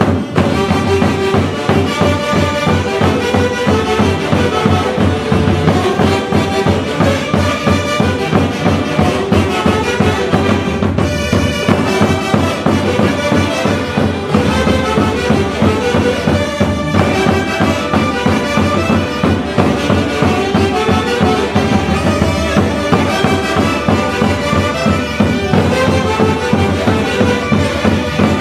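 Band music from a Peruvian orquesta playing live: reedy wind instruments over a steady, fast beat.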